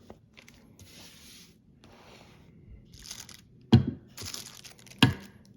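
Hands handling a boxed fixed-blade knife and its packaging: faint rubbing and rustling, with two sharp knocks a little over a second apart in the second half.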